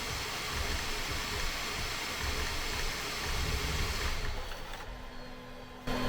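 3D printer cooling fans blowing with a steady airy hiss that dies away about four seconds in. Near the end it is cut off by a quieter background with a faint steady hum.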